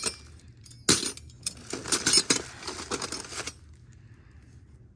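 Solid brass belt buckles clinking against one another as they are handled and sorted: a sharp clink about a second in, then a quick run of clinks for about two and a half seconds.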